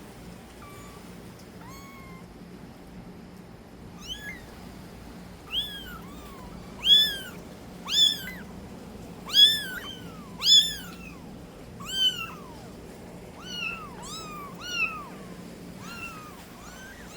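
Kitten mewing: a string of short, high-pitched meows, a few faint ones at first, then louder ones about once a second from about four seconds in, fading again near the end.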